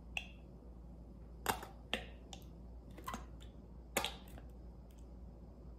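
Plastic squeeze bottle of ketchup being squeezed out: several short crackling clicks and sputtering squirts, spaced about half a second to a second apart.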